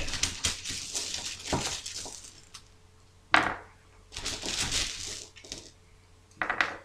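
Translucent plastic gaming dice rattling together and clacking down on the table as six dice are brought out and set down a few at a time: a dense rattle at first, then separate sharp clacks.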